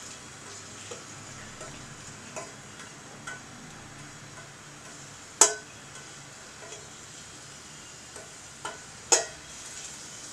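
A lump of asafoetida frying in a little oil in a stainless steel kadai, with a faint sizzle, while a steel ladle stirs it with light scrapes and ticks. The ladle knocks sharply against the pan twice, once midway and once near the end.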